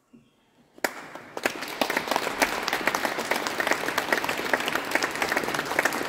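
Audience applause: a single clap about a second in, then many hands clapping steadily, cut off suddenly near the end.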